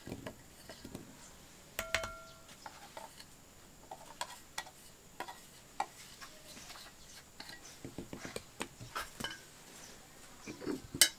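Scattered light clicks and knocks as shallots and garlic cloves are dropped into a stone mortar and a spatula is handled against it, with one short ringing clink about two seconds in and a sharper knock near the end.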